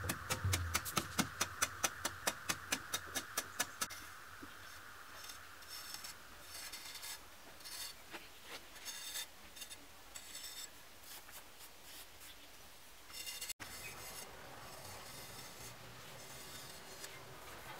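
A hand-held blade scraping and carving into mud plaster: quick, even strokes, about five a second, for the first few seconds, then slower, irregular scraping and rubbing.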